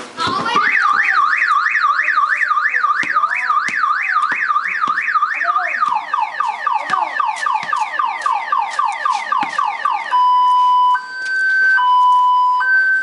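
Car alarm siren going off about half a second in and cycling through its patterns: a warbling up-and-down sweep about three times a second, then faster falling sweeps, then a slow two-tone alternation near the end.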